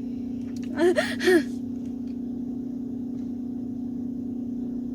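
A steady low hum, with two short vocal sounds from a person about a second in.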